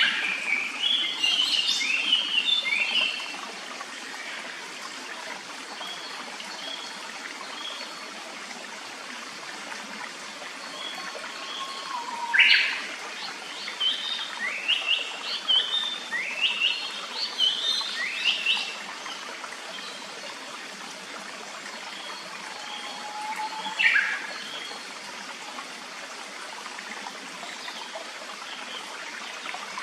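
Japanese paradise flycatcher singing in three bouts of quick, sliding notes: one at the start, a longer run in the middle, and a short one near the end. A shallow stream runs steadily underneath.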